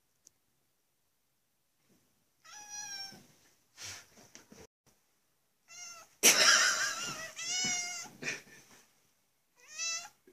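Domestic cat making a series of short, wavering chirps and meows, the loudest and harshest about six seconds in: the excited chattering of a cat eager to catch a moth.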